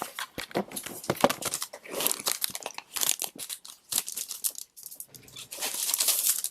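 Plastic wrapping being pulled off a new tablet, crinkling and tearing in irregular crackles, with a short pause past the middle and a louder stretch near the end.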